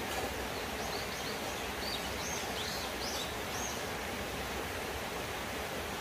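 Steady rush of a mountain stream running over rocks. A bird adds a string of short, high chirps from about half a second in until just before four seconds.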